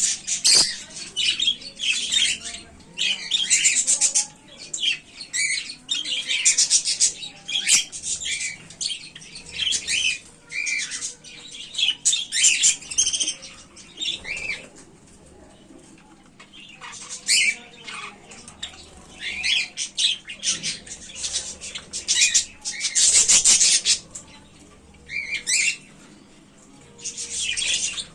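Bird chicks calling in repeated bouts of high-pitched cries, with short pauses between the bouts.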